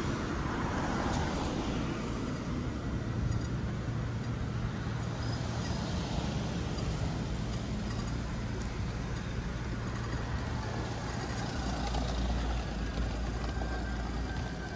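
Steady low rumble of road traffic, with vehicle engines running and a general urban din, swelling slightly near the end.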